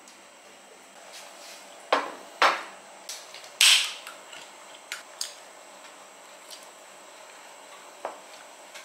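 A can of sparkling water being opened: the ring-pull cracks and the gas hisses out briefly, after two sharp knocks. A few light clicks follow, and near the end a fork clinks on a plate.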